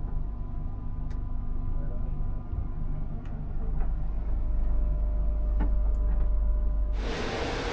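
Steady low hum of a railway carriage, with a few faint ticks. About seven seconds in it gives way abruptly to the loud rushing, rattling noise of a train on the move.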